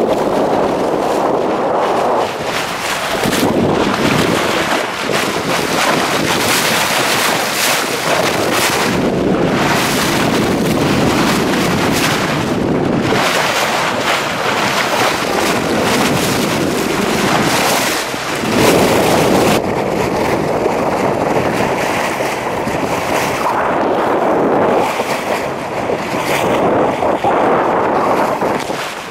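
Wind buffeting the microphone and water rushing and splashing along the hull of a boat moving across the open sea, as a loud, uneven hiss. The higher part of the hiss drops away about two-thirds of the way through.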